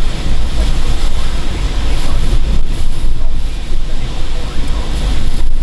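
Hurricane Jeanne's back eyewall: strong hurricane wind gusting and buffeting the microphone with a heavy low rumble, rising and falling from gust to gust.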